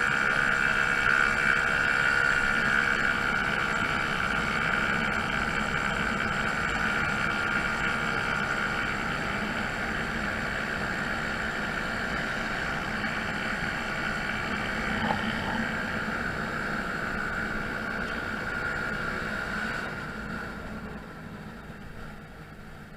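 Honda Zoomer scooter's 50cc four-stroke single-cylinder engine running while riding along, with a steady whine over a low rumble. It gets quieter about twenty seconds in.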